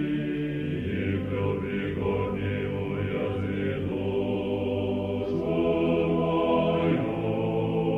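Choir singing a slow chant in long held chords, which change about a second in and again near the end.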